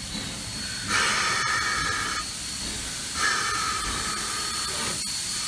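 Steam hissing from K-28 narrow-gauge steam locomotive No. 476 as it moves slowly past, in two long blasts: the first about a second in, the second about three seconds in and lasting to the end.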